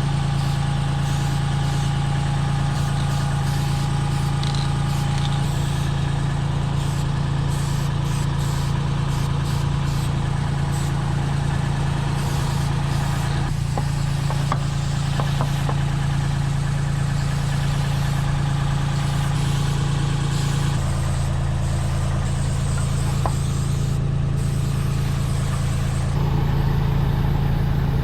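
Boom lift's engine running steadily with a low drone. The tone shifts about two-thirds of the way in and again near the end. A few faint clicks come around the middle.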